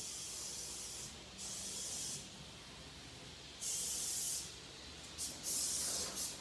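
Dettol All in One aerosol disinfectant spray being sprayed in a string of hissing bursts: four longer sprays of under a second or so each, with two quick puffs just before the last.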